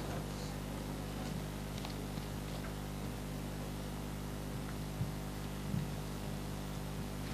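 Steady low electrical hum of the room, with a couple of faint knocks about five and six seconds in.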